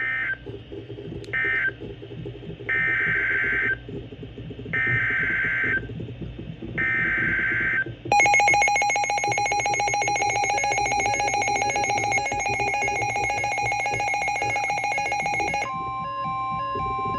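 Emergency Alert System tones. Two short end-of-message data bursts are followed by three warbling digital header bursts of about a second each, then the harsh two-tone attention signal sounds for about seven seconds. Near the end it switches to a single steady tone, with a low background underneath.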